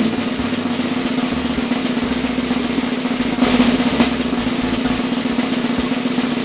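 Snare drum roll, steady and continuous, with no separate strokes standing out: a suspense roll before an answer is revealed.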